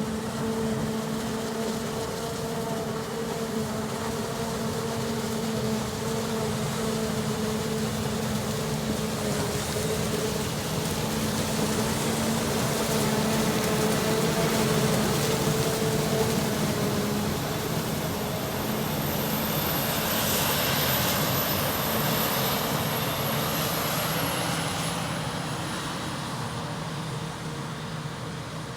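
Large diesel farm machinery running: a steady engine hum at first, then from about 17 seconds in a louder rushing noise with a thin high whine that dips in pitch near the end.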